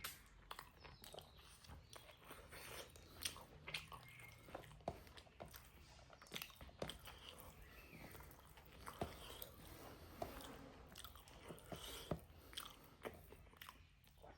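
Close-miked chewing and mouth sounds of a person eating pork with rice: quiet, irregular wet smacks and small clicks as the food is bitten and chewed.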